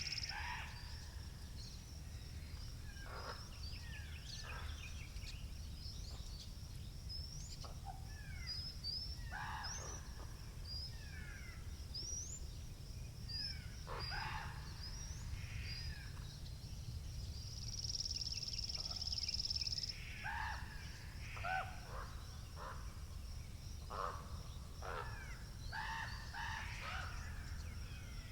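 Wind rumbling on the microphone under many birds calling and singing in short chirps and sweeping calls. A high, thin steady trill runs through and grows louder for a couple of seconds about two-thirds of the way in.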